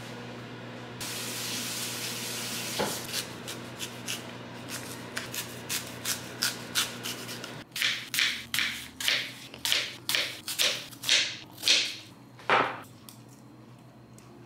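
Kitchen knife cutting through a raw apple onto a plastic cutting board: a run of about ten crisp cuts, roughly two a second, in the second half. Before that there is a steady hiss with faint small clicks.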